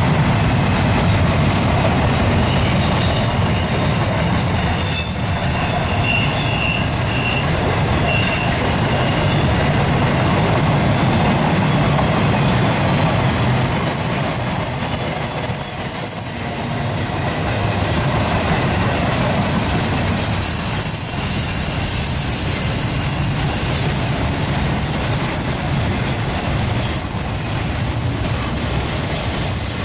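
Double-stack intermodal well cars rolling past at speed: a steady rumble of steel wheels on rail, with a thin, high wheel squeal that comes and goes and is strongest about halfway through.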